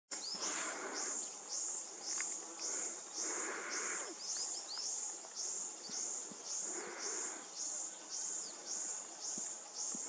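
An insect's shrill call in the forest, one short high note that drops slightly in pitch, repeating very evenly about twice a second. Softer bursts of lower hiss come and go every three seconds or so.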